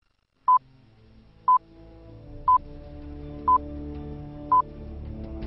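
Electronic timer beeps, one short high beep each second, five in all, marking the seconds of a digital counter. Beneath them a slow synthesized music pad fades in and swells steadily.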